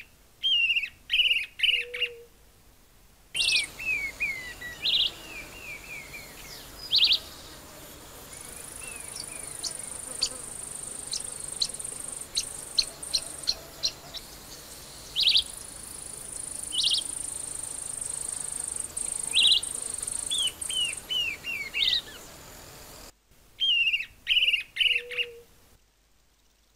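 Narrow-billed woodcreeper singing: repeated quick series of sharp whistled notes that fall in pitch. In the middle stretch it sings over a hissy background with short high chips and a steady high insect buzz that comes and goes.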